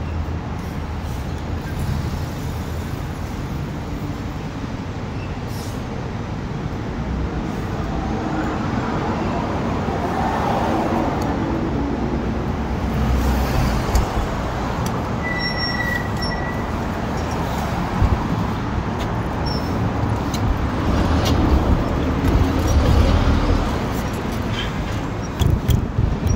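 Steady rumble of road traffic, with a brief high squeal about two-thirds of the way through and a few sharp knocks near the end.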